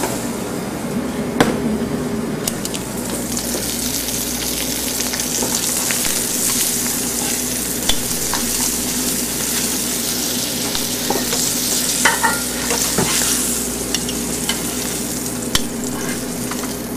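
Slices of goose foie gras searing in their own fat in a hot Teflon pan, a steady sizzling hiss. A few light clicks come through it as metal tongs turn the slices and lift them out.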